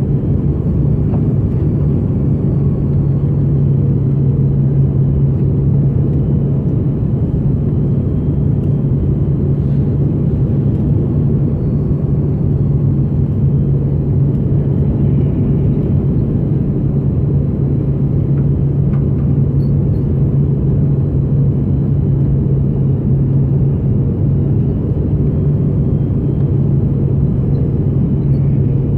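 Steady cabin rumble inside an Airbus A330-200 powered by two GE CF6-80E1 engines: a dense low drone with a faint, slightly wavering high whine above it.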